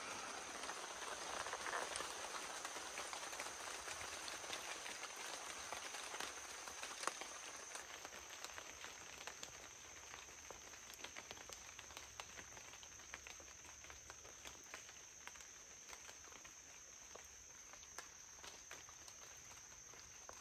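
Steady high-pitched drone of insects, with faint scattered clicks and light rustling, a little louder in the first few seconds.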